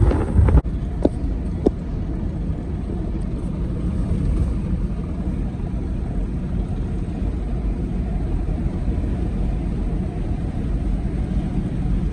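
Vehicle driving at a steady pace, heard from inside the cabin: a steady low engine and road rumble, with a few sharp clicks in the first two seconds.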